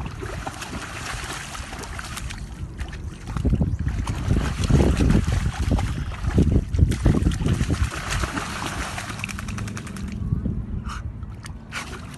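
A dog splashing and rolling in a shallow muddy puddle, the muddy water sloshing and splattering, loudest in the middle stretch.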